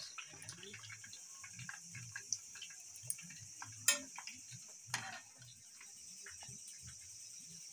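Chicken pieces frying in hot oil in a small iron kadai, a continuous light crackle of popping oil. Two sharp clicks of a metal spoon knocking the pan come about four and five seconds in.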